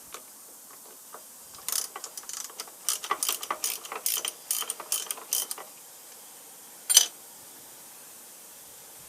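Metallic clicking and rattling from hand tools and parts of an old metal shaper's cross slide being worked apart. An irregular run of clicks lasts about four seconds, then a single loud, sharp click comes near the end.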